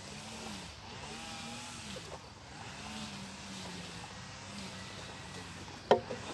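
A petrol grass cutter's small engine running at a distance, its pitch rising and falling as it is revved up and down, over a steady rush of wind. A sharp click near the end.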